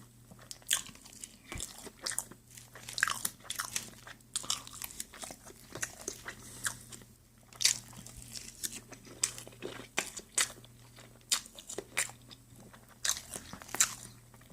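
A person eating pancakes close to the microphone: irregular wet mouth clicks and smacks of chewing, with soft knocks that may be a fork on the plate, over a faint steady hum.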